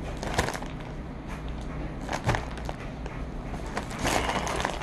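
Clear plastic zip bag being squeezed and crinkled by hand to push the air out, with a couple of light knocks, one about half a second in and one just past two seconds, and louder crinkling near the end.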